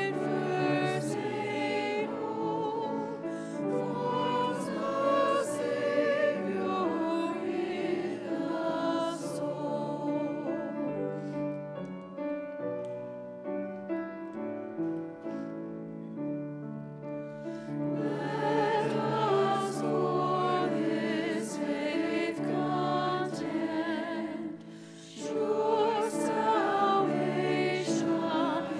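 Mixed church choir singing an anthem with piano accompaniment. It grows softer in the middle, breaks off briefly a few seconds before the end, then comes back fuller.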